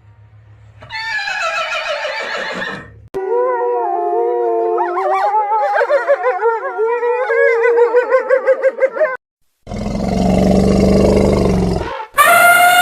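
Several different animal calls, one after another, each starting and stopping abruptly: a short falling call, a long wavering call, a rougher noisy one, and another falling call near the end.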